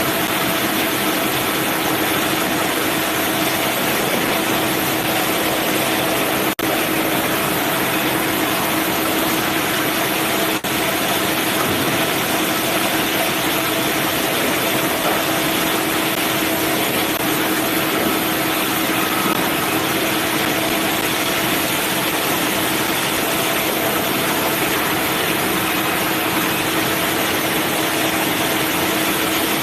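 Manual bandsaw sawmill running steadily: a loud even mechanical noise with a constant hum, briefly dipping twice.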